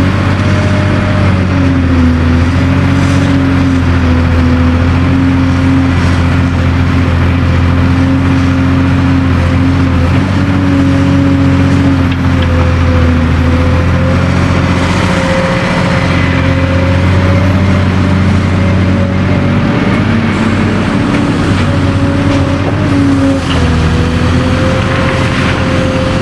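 Diesel engine of a Cat 385C large hydraulic excavator running steadily and loudly at working speed. Its note dips slightly and recovers a few times, about 2 s, 13 s and 23 s in.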